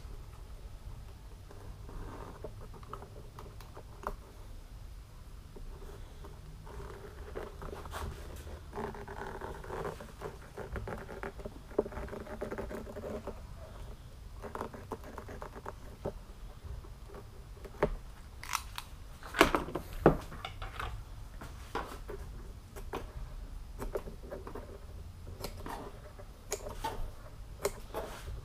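Utility knife slicing short relief cuts into vinyl upholstery, heard as small scratchy cuts, clicks and scrapes as the material is handled, with the loudest clicks about two-thirds of the way through. A faint low hum runs underneath.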